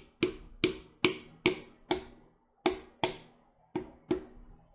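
The butt end of a plastic hammer's handle tapping a piston down through a ring compressor into a cylinder bore of a Mazda Miata 1.8 BP engine block. The sound is a series of sharp light taps, about two or three a second, with a short pause about halfway through and softer taps near the end.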